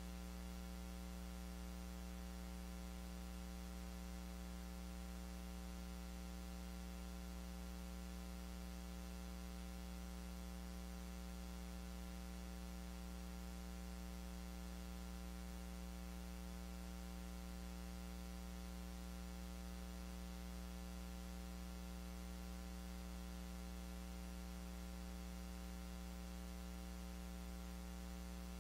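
Steady electrical mains hum, a low buzz with many overtones, over a faint hiss of static.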